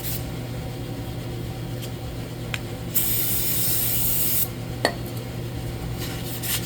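Aerosol can of brake cleaner sprayed in one burst of about a second and a half, with a couple of light clicks around it. Near the end, emery cloth starts rubbing back and forth on the metal valve spool.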